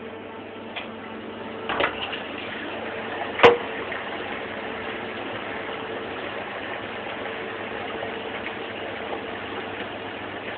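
Brother HS50A wire EDM machine running: a steady rush of flushing water and pump noise with a constant hum, a light double click a little under two seconds in and a sharp knock about three and a half seconds in.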